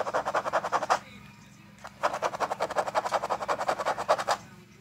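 English bulldog puppy panting rapidly, about ten quick breaths a second, in bouts of a second or two with short pauses between.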